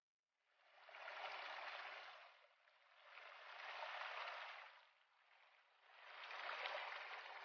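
A small mountain stream splashing over rocks, a faint rush of water that swells and fades three times, each swell about two seconds long.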